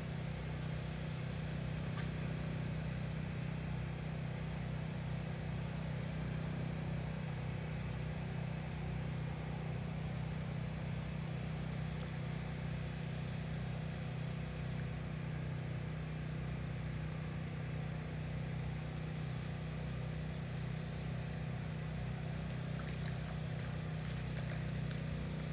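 A steady low mechanical hum, like an engine or motor running, with a few faint clicks near the end.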